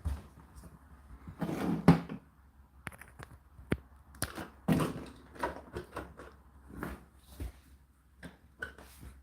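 Indesit IDC8T3 condenser tumble dryer running: irregular knocks and clicks of the load tumbling in the drum over a faint steady low hum, with the loudest cluster of knocks about two seconds in.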